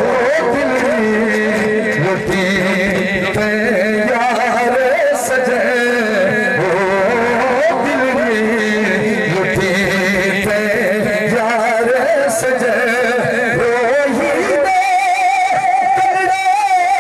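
A man singing devotional verse into a microphone, amplified over a PA loudspeaker, in long, wavering, ornamented notes. Near the end he moves up to a higher note and holds it.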